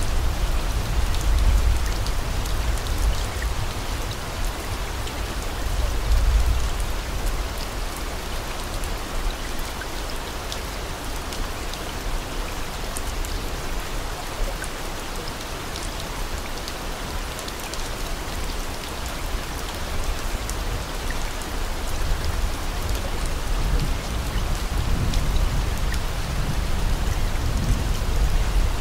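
Steady rain with scattered drop clicks over a low rumble that swells a few times.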